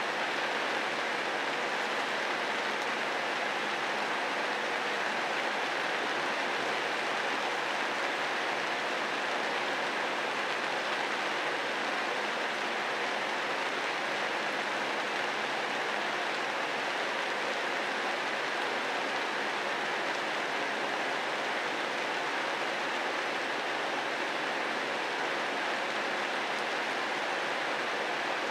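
Steady rain falling, an even hiss that holds unchanged throughout.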